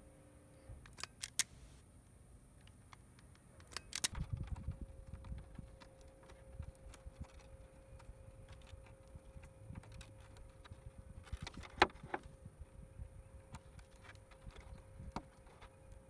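Small clicks and rustling of hands handling wires and a wire stripper/crimper, with a few sharp clicks, the loudest about twelve seconds in.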